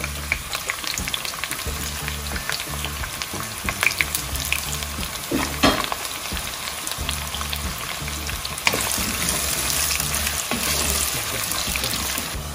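Sliced onions sizzling as they fry in oil in a stone-coated pot. A wooden spoon scrapes and knocks against the pan as they are stirred, and the sizzle grows louder about two-thirds of the way through.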